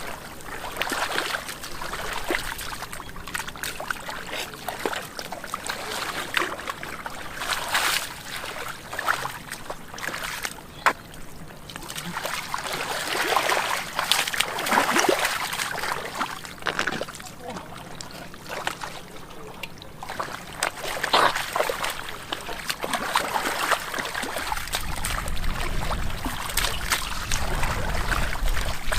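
Muddy shallow water splashing and sloshing in irregular surges as hands grope through it for fish, with a few sharp wet slaps. A low rumble comes in near the end.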